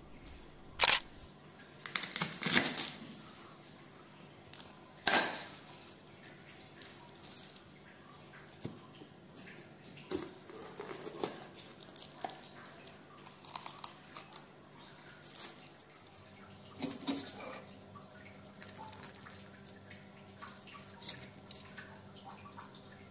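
Kitchen preparation sounds: scattered knocks and taps on a wooden cutting board as bok choy is handled and cut with a knife, the loudest a sharp knock about five seconds in, with clinks of dishes and, near the end, liquid and food tipped from a bowl into a frying pan. A faint steady hum comes in about two-thirds of the way through.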